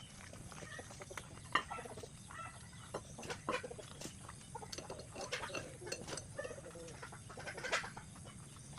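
Chickens clucking in short, scattered calls, with sharp clicks now and then, over a steady low hum.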